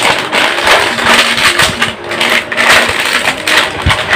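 Crinkly plastic snack packet being cut open with scissors and handled, a continuous irregular crackling, with a dull thump near the end.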